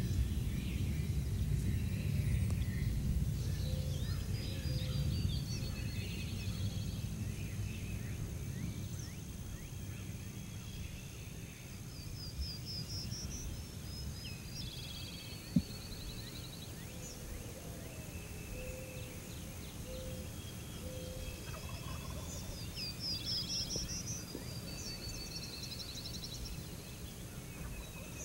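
Wild turkey gobbler gobbling as it comes in to a box call, among songbirds singing. A low rumble fills the first several seconds, and a single sharp click comes about halfway through.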